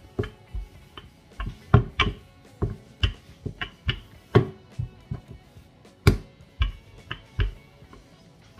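Wooden rolling pin knocking and rolling over dough on a silicone pastry mat, in irregular sharp knocks about two or three a second, over faint background guitar music.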